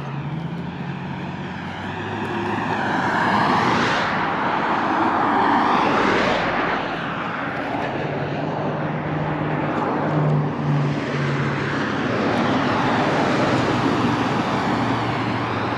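Traffic passing on a two-lane highway: engine hum and tyre rush from cars and a van swelling and fading as they go by, loudest a few seconds in and again near the end.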